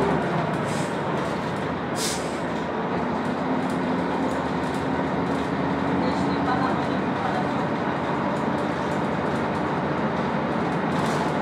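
Jelcz 120M city bus with a manual gearbox, heard from inside the passenger cabin under way: the diesel engine runs steadily over road and body rumble, its note climbing gradually as it pulls in gear. A brief sharp noise comes about two seconds in.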